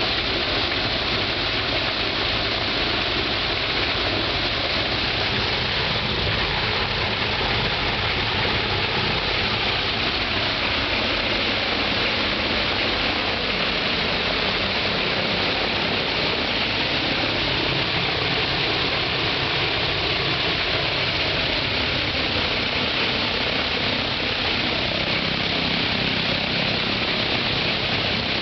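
Shvetsov ASh-82T fourteen-cylinder radial piston engine of an Ilyushin Il-14T running steadily on its first ground run, its propeller turning, loud and even throughout.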